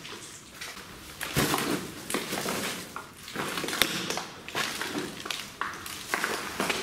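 Footsteps crunching over debris and grit on a concrete floor: irregular, uneven steps that grow louder about a second and a half in.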